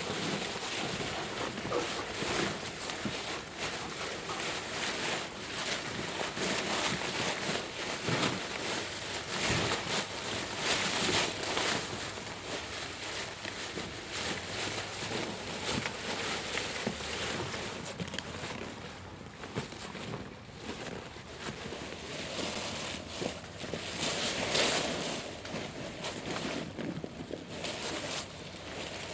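Dry fallen leaves rustling and crunching irregularly as two briard puppies romp and scuffle through a leaf pile.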